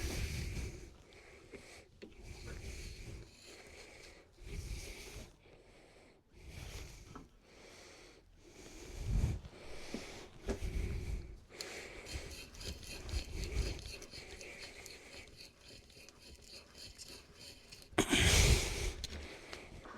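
Hand-tool work on wood: irregular rubbing and scraping strokes, with a run of fine rapid rasping in the middle and a louder knock near the end.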